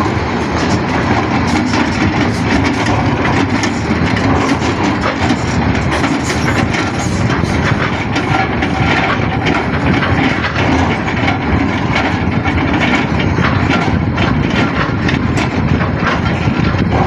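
Excavator's diesel engine running steadily at a construction site, with frequent irregular clanks and rattles as it loads a lorry.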